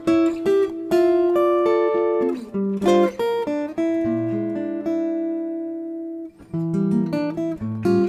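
Background music on acoustic guitar: strummed chords, with one chord left ringing for a few seconds past the middle before the strumming picks up again.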